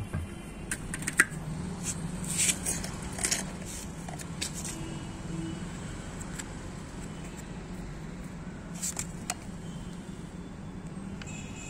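Scattered light knocks, clicks and scrapes as hands turn a terracotta clay pot on concrete and set a small paper-wrapped snake-tablet cracker on top of it, over a steady low hum.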